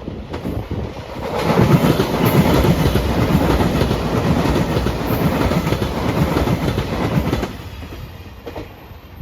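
A train passing close by, its wheels clattering over rail joints in a quick rhythm; the sound swells about a second in and falls away about seven and a half seconds in.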